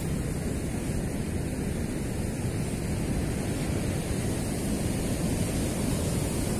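Steady low rushing noise with no rise and fall.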